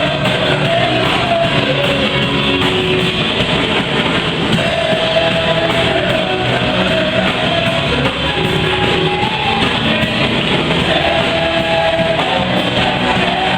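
Live worship band playing an upbeat song, with guitar and drum kit, at a steady level and with no break.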